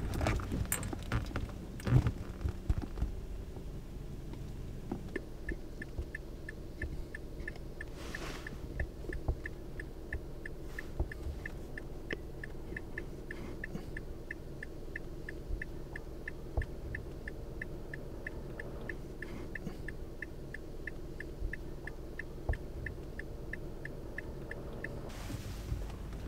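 Low steady rumble of a car interior, with a regular high ticking, about three ticks a second, that starts about five seconds in and stops shortly before the end.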